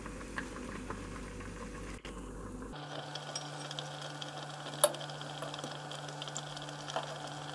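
Faint steady hiss of apple pieces simmering in a pot, with light clinks of a metal fork against the cookware; the sharpest clink comes about five seconds in. A faint steady hum joins in a little under three seconds in.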